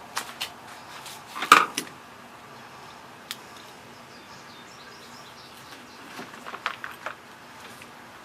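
Light metallic clicks and clanks of a lawn mower's self-propel drive parts being handled and worked. The loudest clank comes about a second and a half in, and a cluster of clicks comes around six to seven seconds in.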